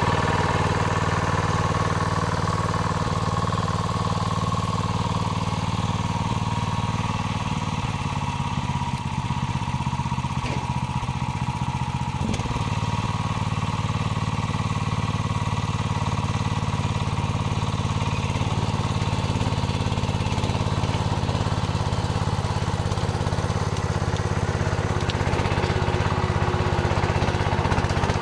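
Engine of a Ferrari two-wheel walking tractor fitted with a BCS rotary tiller, running steadily.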